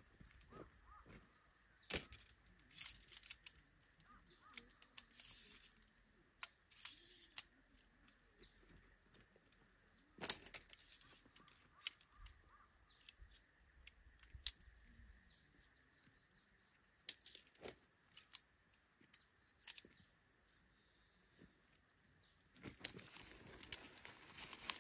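Quiet outdoor background broken by scattered sharp clicks and a few faint chirps. About two seconds before the end, nylon tent fabric rustles close by as it is handled with a tent pole.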